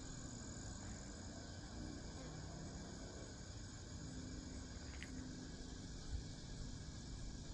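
Faint, steady chorus of insects singing, with a low rumble underneath and a single small click about five seconds in.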